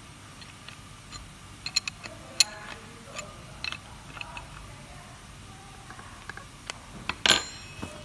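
Scattered metallic clicks and clinks as a pot filler faucet's brass cartridge and metal housing are handled and worked with a small hand tool. A few sharp clicks come about two seconds in, and the loudest clack comes near the end.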